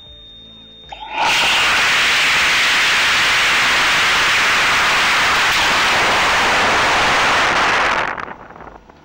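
High-power model rocket launching, heard from a camera riding on it: a loud rushing noise starts suddenly about a second in as the motor ignites and holds steady for about seven seconds through the boost and climb, then fades away.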